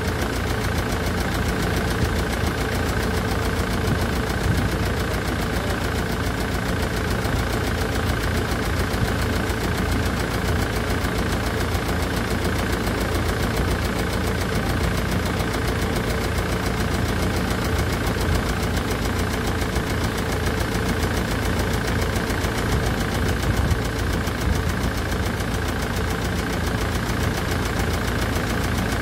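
Land Rover Defender's Puma 2.4 TDCi four-cylinder turbodiesel idling steadily on its first run after a rebuild, with a ticking from hydraulic tappets not yet full of oil.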